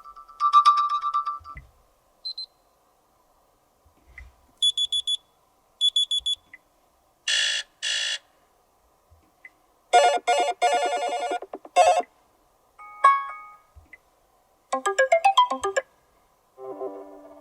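Sony Xperia 5 III smartphone playing a run of different short alarm tones one after another, each a chime or a short melodic jingle, with brief silences between them.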